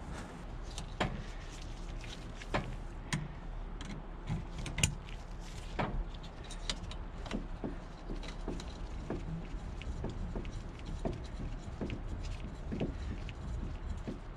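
Irregular small clicks and taps of a carburetor and its throttle cable fitting being handled and worked by gloved hands.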